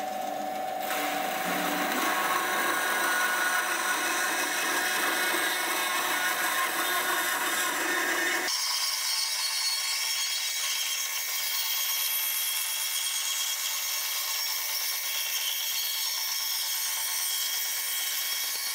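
Bandsaw running and cutting a curve through a block of hardwood, a steady rasp of the blade in the wood. About eight and a half seconds in the low hum drops away abruptly and the higher cutting noise carries on.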